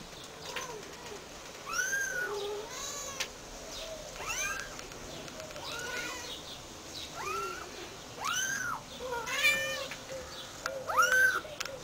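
Young kittens mewing repeatedly, short high-pitched calls that rise and fall, about one a second. A few lower, softer calls come between them.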